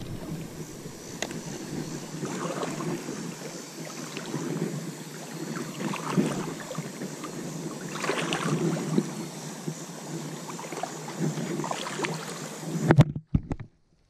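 Water lapping and moving around a small boat on the river, with scattered light knocks against the hull.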